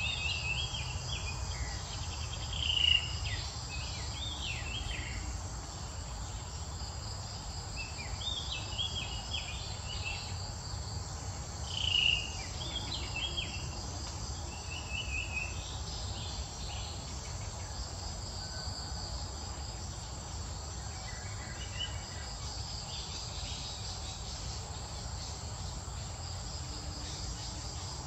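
Insects chirring steadily, with clusters of short high chirps through the first half, loudest about three seconds and twelve seconds in.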